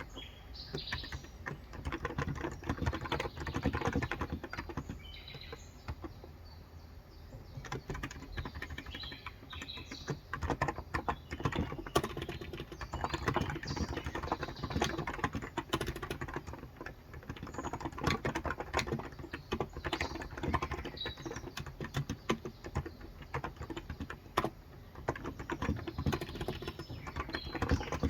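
Typing on a Cox Endeavor electrocapacitive (non-contact) 35 g tenkeyless keyboard: a quick, irregular run of soft keystrokes with a couple of brief pauses. Birds chirp faintly in the background.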